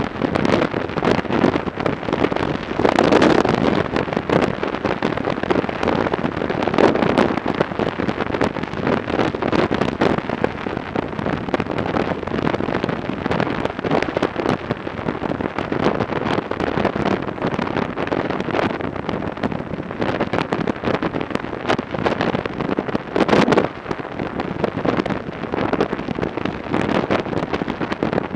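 Wind buffeting the microphone on a moving Yamaha XJ900 Diversion motorcycle, a steady rushing noise with constant gusts over the bike's road and engine noise.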